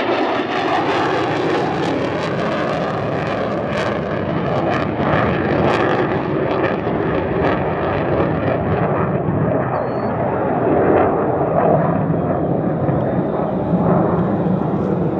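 An F-35A Lightning II's single F135 jet engine in flight, a loud, steady rush of engine noise. From about halfway through, its hiss fades as the jet draws away.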